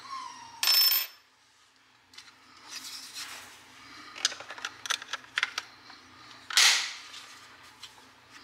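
Hex key turning the screw that seats two CO2 cartridges in a Crosman AK-47 BB gun magazine, with a short hiss about half a second in as the gas is let in. After that comes a run of hard plastic clicks and rattles as the magazine's side cover is fitted and snapped shut, then another short rushing noise.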